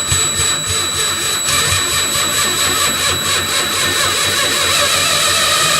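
Electric drill running steadily in reverse, its bit turning in the water-intake plug bore of a Johnson 5.5 hp outboard lower unit to clear out old sealer, with a steady high whine.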